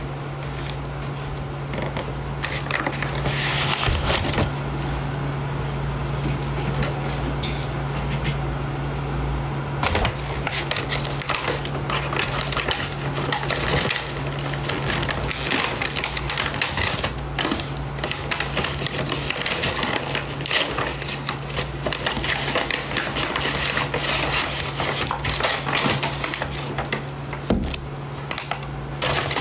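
Starbucks paper delivery bag rustling and crackling as it is handled and opened, with many irregular small clicks, over a steady low hum.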